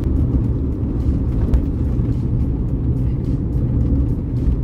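Car driving along, heard from inside the cabin: a steady low rumble of engine and road noise.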